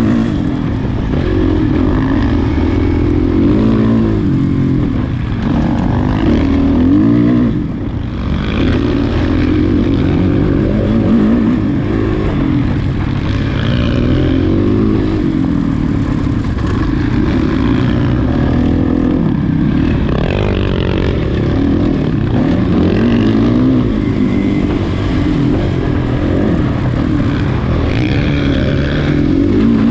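Off-road race motorcycle engine under hard riding, its pitch climbing and falling again and again as the revs change, over a steady rush of noise.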